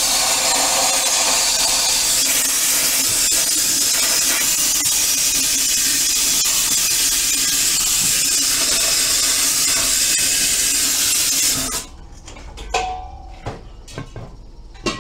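Compressed air hissing loudly and steadily from a tyre-inflation hose into a tubeless tyre on a steel rim, escaping around the unseated bead so the tyre does not inflate. The hiss cuts off sharply about twelve seconds in, followed by a few knocks as the tyre is handled.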